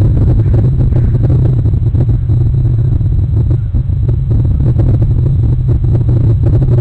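Steady loud low rumble of wind buffeting an outdoor camera microphone, with scattered light crackles.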